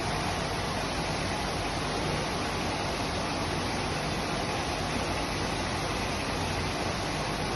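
Steady machine noise: an even hiss with a low hum underneath, with no distinct strokes or changes.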